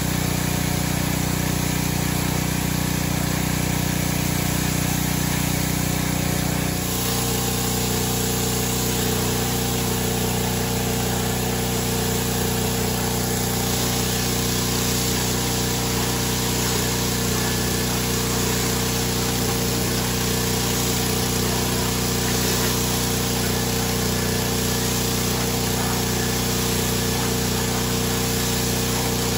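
Pressure washer running steadily through an undercarriage-cleaner attachment: a constant motor-and-pump hum under the hiss of water jets spraying the underside of a riding mower's cutting deck. The hum shifts slightly in pitch about seven seconds in.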